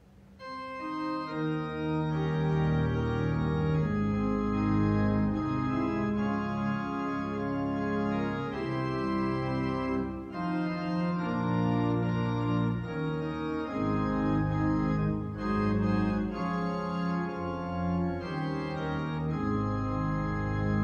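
Organ music: slow, sustained chords that change every second or so, beginning about half a second in.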